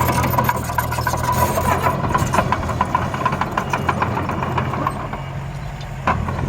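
Engine of a small earth-moving machine running steadily at a low pitch, with a fast irregular clatter of clicks over it and a sharp knock near the end.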